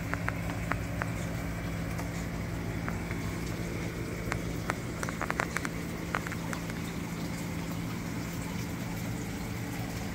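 Reef aquarium equipment running: a steady low hum of pumps under water trickling and bubbling, with a few small clicks and pops about halfway through.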